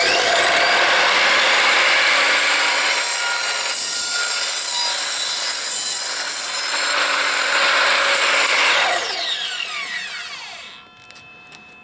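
Evolution R255SMS 10-inch sliding mitre saw with its multipurpose blade cutting through a 3x3 timber fence post and the steel screws in it: a loud, steady cutting noise for about nine seconds. Then the blade winds down with a falling whine.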